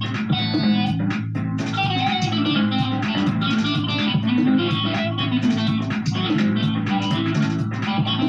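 Guitar played freestyle in a quick run of plucked notes at a steady level.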